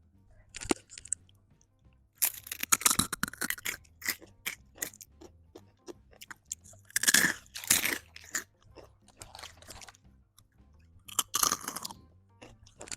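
Guacamole Takis rolled corn tortilla chips crunched and chewed close to the microphone: three loud bouts of crunching, about two, seven and eleven seconds in, with smaller crunches between.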